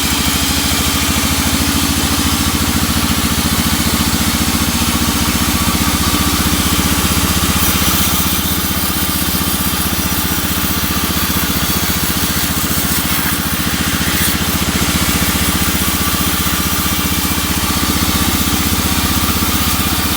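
Sawmill engine running steadily at a constant speed, with an even firing rhythm.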